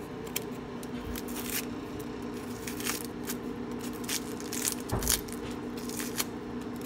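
Small kitchen knife scraping and peeling the dry papery skin off a brown onion, with scattered crackles and scrapes and a low thump about five seconds in, over a steady hum.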